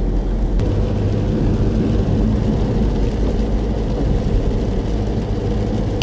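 A car driving on a rain-wet road, heard from inside the cabin: a steady rumble of engine and tyre noise.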